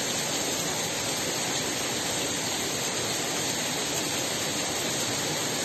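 Heavy thunderstorm rain pouring steadily onto a wet street, an even, unbroken hiss.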